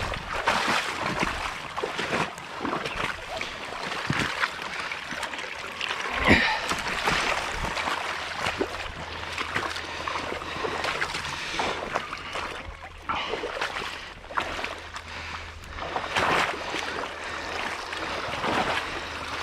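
Water splashing and running through a beaver dam as it drains, with irregular knocks and splashes and one louder thump about six seconds in.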